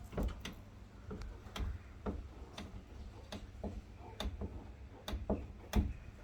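A series of sharp, irregularly spaced clicks and light knocks, roughly one to two a second, over a faint low hum.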